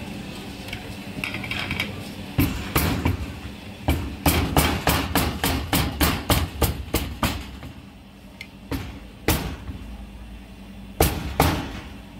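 Meat cleaver chopping crispy-skinned roast pork on a round chopping block: a quick run of sharp chops, about three a second, from a couple of seconds in. After a short pause a few slower chops follow.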